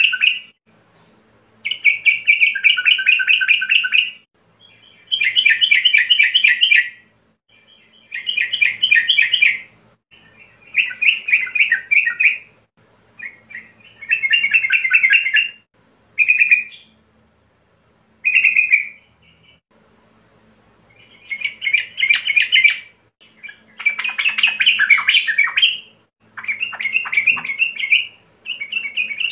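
Male yellow-vented bulbul singing: loud, chattering warbled phrases of one to two seconds, repeated every two to three seconds with short pauses, and a couple of short single notes near the middle. It is the male's call to rival birds.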